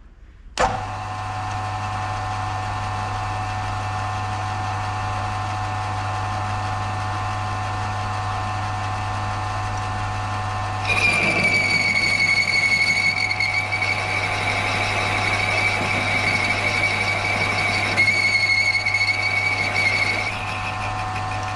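Milling machine spindle starting up and running with a steady hum, a boring head in the chuck. About ten seconds in, the boring cutter bites into the plate with a loud, high-pitched squeal. The squeal stops shortly before the end as the pass finishes, and the motor runs on.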